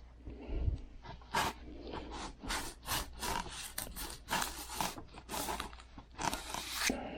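Sharpened metal cookie cutter being pressed and worked through a sheet of half-inch foam to cut out a round filter: a run of short scraping, crunching strokes, about two a second.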